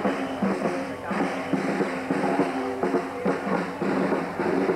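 Marching brass band playing a march, brass over a steady beat of snare drum, bass drum and cymbals.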